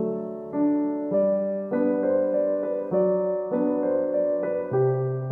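Background piano music, a gentle melody of separate notes over soft chords.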